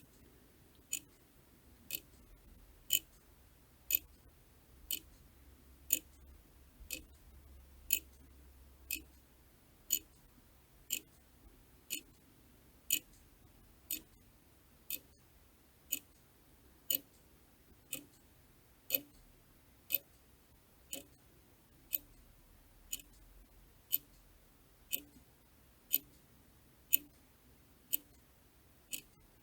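Clock ticking steadily, one sharp click each second, the ticks varying a little in loudness.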